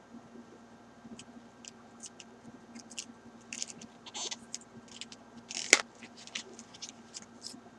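Scissors cutting open a mailed package: a string of irregular small snips and crackles, with one sharper, louder snip about two-thirds of the way through.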